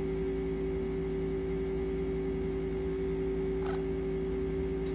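Steady electrical hum with a few fixed tones, with one brief faint chirp about three and a half seconds in.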